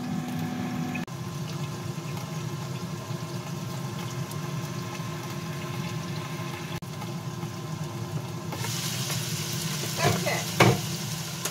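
Frozen broccoli florets frying in an electric skillet, a sizzle under the glass lid over a steady low appliance hum. About eight and a half seconds in the lid comes off and the sizzling turns louder and brighter, followed by two short clatters.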